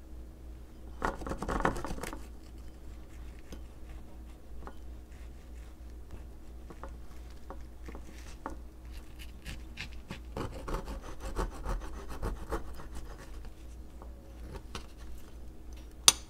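A knife sawing through a crisp baked whole-wheat tart crust against a wooden cutting board: two spells of fine crackling strokes, a short one about a second in and a longer one past the middle, then a single sharp knock near the end.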